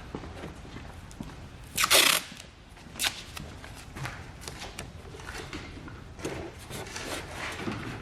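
Tape being pulled off a roll in two short rips, one just before two seconds in and a sharper one about a second later, with small handling clicks and rustles.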